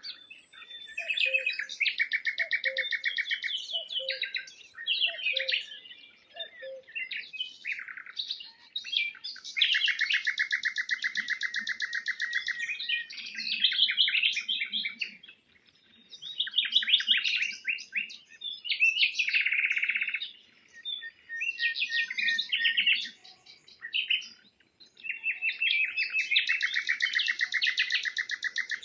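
A songbird singing a run of varied phrases made of fast trills and rapid note series, with short pauses between phrases. A faint low note repeats during the first several seconds.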